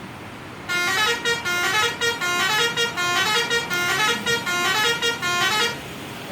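Telolet bus horn, a multi-tone musical horn, playing a quick tune of short notes stepping up and down for about five seconds. It starts just under a second in over a low traffic hum.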